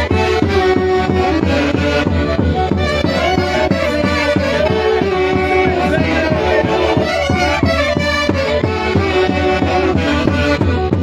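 Santiago festival music played by a Peruvian orchestra: a loud, steady melody from wind and string instruments over an even driving beat and bass.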